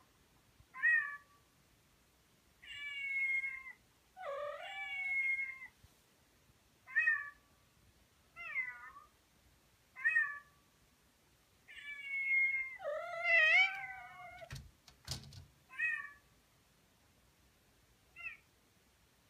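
A Persian cat meowing over and over, calling out to another cat: about ten calls, some short and some long and drawn out. About two-thirds of the way through, a second, higher call briefly overlaps one of them, followed by two short knocks.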